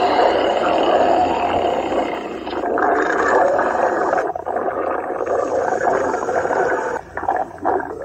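Cartoon stomach-growl sound effect: a long, loud, gurgling growl like a sea beast, wavering throughout with brief dips about four seconds in and twice near the end.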